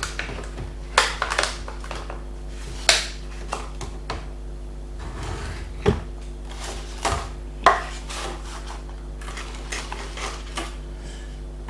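Scattered clinks and knocks of cutlery and dishes being handled while food is served, over a steady low hum.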